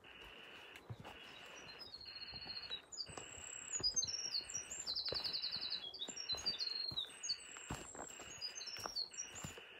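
A songbird singing one long, high song of rapid trills and quick notes, with the walker's footsteps on a dirt forest trail underneath.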